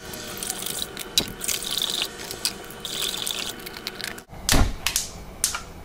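Water pouring into a stainless steel pot, a steady wash with small splashes. After a break about four seconds in there is a loud thump and a few knocks.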